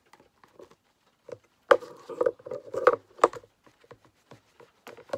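Craft supplies being handled on a table: scattered clicks and knocks with some rubbing, loudest in a cluster about two to three seconds in.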